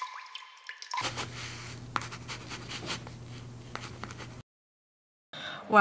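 Sound of handwriting scratching on paper in many quick strokes, over a low steady hum. It cuts off suddenly about four and a half seconds in. A short steady high tone comes before it.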